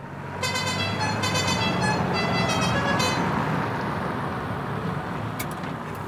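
A snow-clearing wheel loader's horn tooting about six times in quick succession, while its engine runs steadily underneath.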